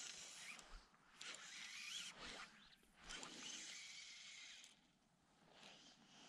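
Fly line being stripped in by hand, hissing through the fingers and the rod guides in three long pulls, with a fainter fourth pull near the end.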